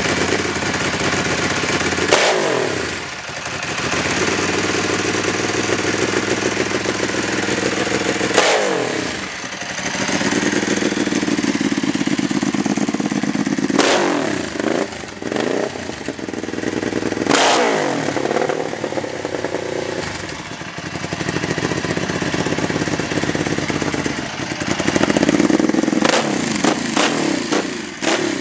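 2005 Ducati 999's L-twin engine through open GPR Deeptone mufflers, idling and blipped to high revs, each rev falling back to idle. Four single blips are spread through, then a rapid run of short blips near the end.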